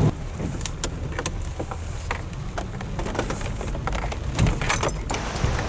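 Steady low rumble of a vehicle heard from inside the cab, with scattered light clicks and ticks.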